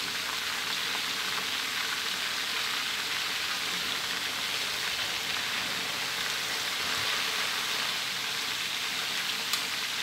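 Pieces of fermented mrigal carp (pla som nuanchan) deep-frying in a wok of hot oil, with a steady, even sizzle. A single short click comes near the end.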